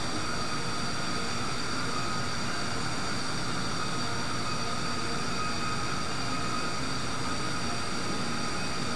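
A steady hiss with a faint hum, unchanging.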